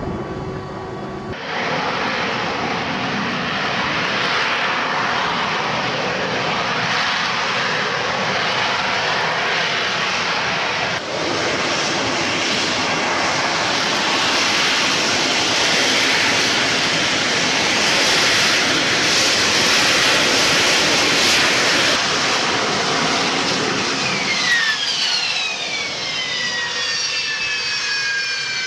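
AV-8B Harrier's Pegasus turbofan running at high power: a loud, steady jet roar. It changes abruptly about a second in and again about eleven seconds in. Near the end a high whine with several tones slides steadily down in pitch.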